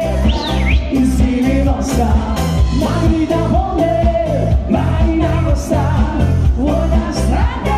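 1990s-style Russian pop dance song: singing over a steady, bass-heavy beat with even hi-hat ticks.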